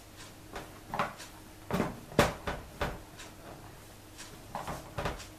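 Handling sounds of hair styling: a string of light clicks and knocks, the loudest about two seconds in, as a plastic duckbill hair clip is taken up and snapped onto the hair.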